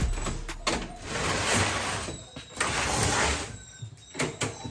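A metal dog box being handled, giving a few sharp clicks and knocks, with swells of rustling noise in between. The tail of the intro music fades out at the start.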